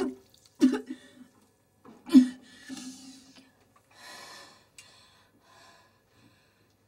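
A young woman retching over a toilet bowl: two sudden strained heaves with a grunt of the voice, the second the loudest, followed by ragged gasping breaths.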